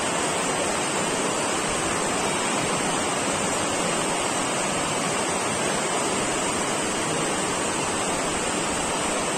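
Steady, even rushing noise of a large sports hall's background, with no distinct sounds standing out.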